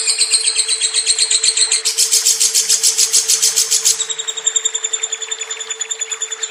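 Lovebird chattering in a long unbroken song (ngekek): high notes repeated about ten times a second. The chatter gets louder and shriller about two seconds in and eases back after about four seconds, over a steady low hum.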